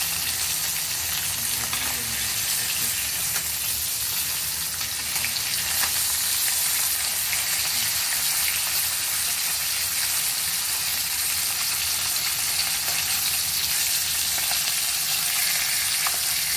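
Rohu fish steaks sizzling in hot mustard oil in a kadhai over high heat: a steady crackling hiss, with light scrapes and taps of a spatula as the pieces are turned over.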